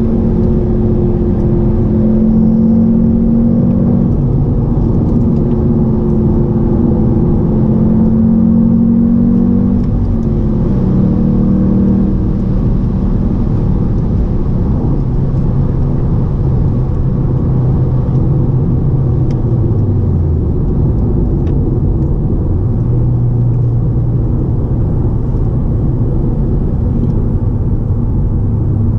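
Audi TTS's turbocharged 2.0-litre four-cylinder engine driving along, with road rumble beneath. The engine note holds higher for the first ten seconds or so, drops about twelve seconds in, falls again around twenty seconds, then settles into a steady low drone.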